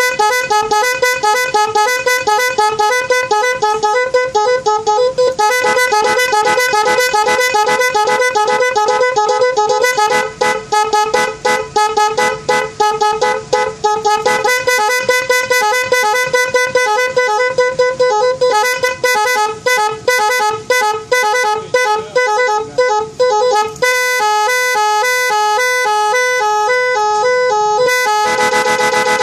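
Snail-type electric vehicle horn (klakson keong) sounding a series of its preset patterns: rapid warbling between two close pitches, fast stuttering pulses, then a repeating chord pattern and a steady blare near the end, switching pattern every few seconds.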